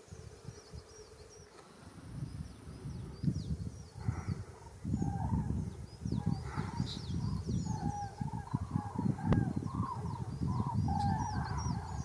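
A large flock of common cranes calling overhead, many rolling trumpeting calls overlapping, the chorus growing louder from about five seconds in.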